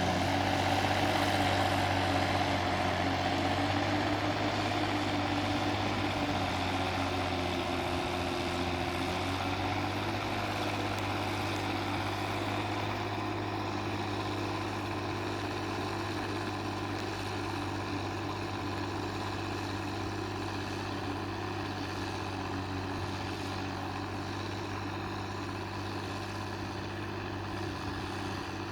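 Case 1694 tractor's diesel engine running steadily, its note wavering a little in the first several seconds and then holding, slowly fading.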